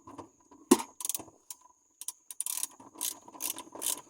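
Newly fitted manual gear shifter being moved through its gates, its lever, linkage and shift cables clicking and clacking. A few scattered clicks come first, then a quicker run in the second half.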